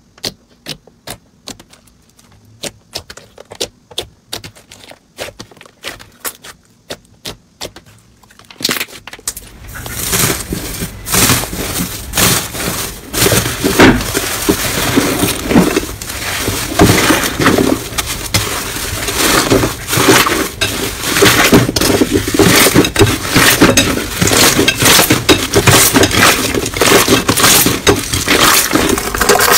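Fingers poking into soft green slime give sharp, separate clicking pops, about one or two a second. About nine seconds in, louder pink slime covered in gold foil is stretched and kneaded by hand, with dense crackling and squelching.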